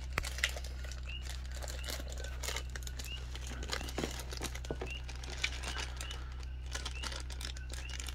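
Thin plastic toy bag crinkling and crackling in irregular handfuls as it is squeezed and pulled at to open it. Faint short high chirps recur throughout over a steady low hum.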